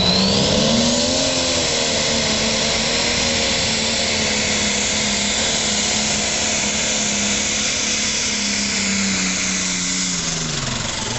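Turbocharged diesel pulling tractor running flat out under load as it drags the sled, a steady high engine note with a loud rush and whine over it. Near the end the engine note falls away as the pull comes to an end.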